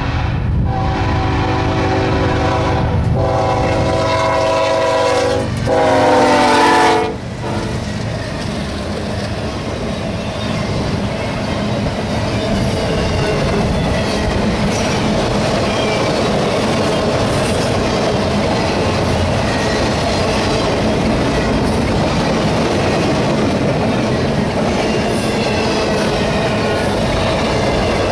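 BNSF diesel freight locomotives sounding a multi-chime air horn in three blasts, the last the loudest and dropping in pitch as the locomotives pass. Then the double-stack container well cars roll by with a steady rumble and wheels clicking over the rail joints.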